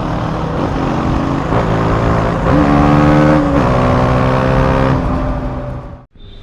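2017 KTM Duke 250's single-cylinder engine running through an Austin Racing GP1R aftermarket exhaust, revved by throttle blips. The revs climb about two and a half seconds in, hold for about a second and drop back. The sound cuts off suddenly near the end.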